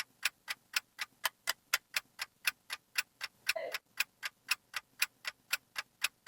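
Clock-style timer ticking, even and fast at about four ticks a second, marking time running out.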